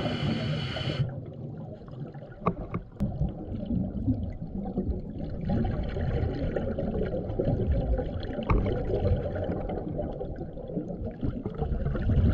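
Underwater bubbling and gurgling over a steady low rumble, from air bubbles streaming out of a beer bottle as a diver drinks from it underwater. A brief louder hiss of bubbles comes in the first second.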